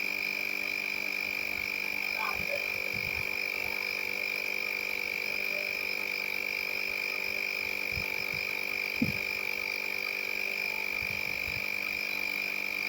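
A steady high-pitched whine over a low electrical hum, with a few faint knocks about 2 and 8 seconds in and a slightly louder one about 9 seconds in.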